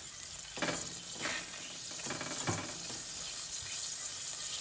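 Butter melting and sizzling in a stainless steel saucepan while a wire whisk stirs it, scraping and tapping against the pan a few times. This is butter being melted to start a white sauce.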